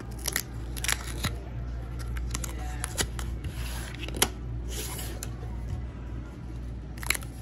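Cardboard pull-tab gambling ticket being opened by hand, its perforated tabs torn back with a series of sharp paper snaps and crackles, a cluster of them near the end. A steady low hum runs underneath.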